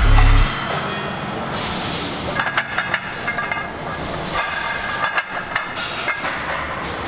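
Music with heavy bass cuts off about half a second in. Metal weight plates then clink and clank against the bar and rack as a loaded barbell is squatted, over a steady hum of gym noise.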